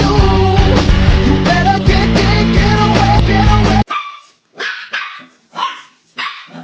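Loud music that cuts off suddenly a little under four seconds in, followed by a dog barking five times in quick succession.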